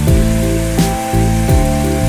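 Background music with a steady beat, over the sizzle of thick slices of pork frying.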